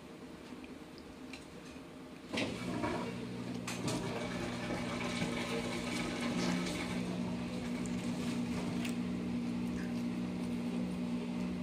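A household machine switches on about two seconds in and runs with a steady hum and a rushing noise.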